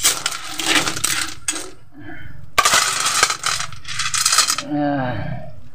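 Hard snail shells clattering and rattling against an aluminium pot and wok as a load of snails is poured in. The clatter comes in two long pours with a short pause between them.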